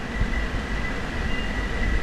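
Outdoor city ambience: a steady low rumble of distant traffic, with a faint steady high-pitched tone over it.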